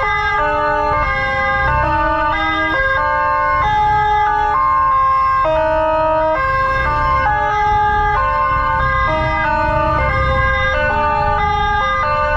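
Electronic emergency sirens of the escorting motorcycle and ambulance, several overlapping and switching between fixed pitches about every half second, over a low engine and traffic rumble.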